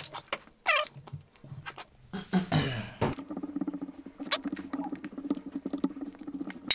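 Fingers squishing and mixing basmati rice into mutton curry on a plate close to the microphone: a stream of small wet clicks and pattering, with a low steady hum under them in the second half.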